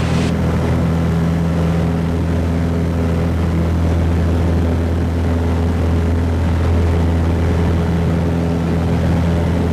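Piper PA-28-161 Warrior's four-cylinder Lycoming engine and propeller heard from inside the cabin, running at takeoff power as the aircraft lifts off and climbs away. A loud, steady drone that holds its pitch throughout.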